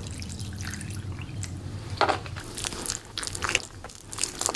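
Milk poured from a carton into a glass bowl of mashed potatoes, then a metal wire potato masher squelching through the wet potatoes in a run of short, quick strokes starting about two seconds in.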